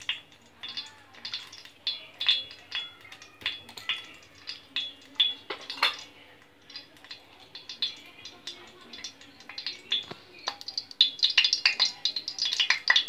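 Desi ghee melting in a stainless steel pan over a gas flame, crackling with scattered pops that thicken into a steady sizzle near the end as the ghee heats.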